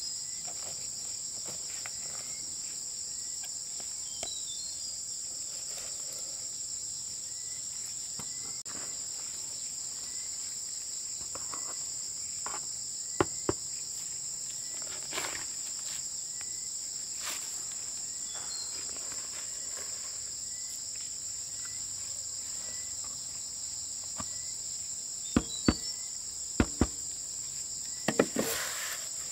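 Steady, high-pitched drone of insects. A pair of sharp knocks comes about halfway, and several louder knocks, mostly in close pairs, come near the end.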